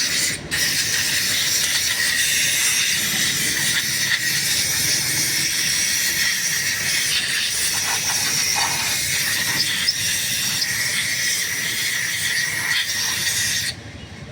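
A high-pressure jet hissing steadily, with a brief break about half a second in, cutting off abruptly near the end.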